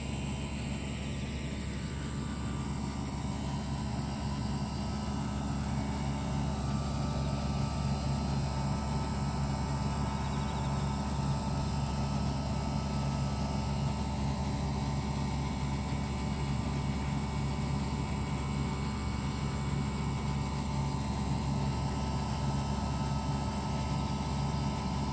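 Single-phase 2 HP refrigeration condensing unit of a cold-storage room running: a steady compressor hum with the whir of its condenser fan.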